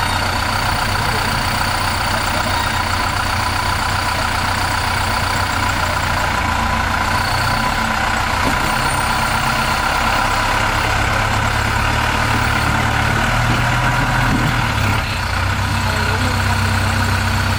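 Rock-crawling vehicle's engine idling steadily, with a steady high whine over it and a short dip in level about fifteen seconds in.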